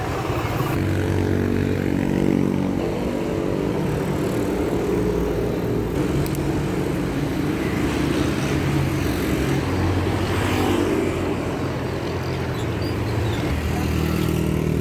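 Road traffic: engines of motorcycles and a jeepney running close by, their pitch shifting as they pass.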